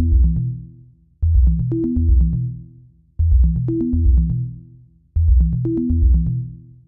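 Electronic background music with a drum-machine beat and a deep bass line, in a short phrase that repeats about every two seconds.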